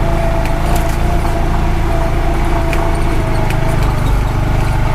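Honda Pioneer 520 side-by-side's engine running steadily under way, with a steady whine and scattered clicks and knocks.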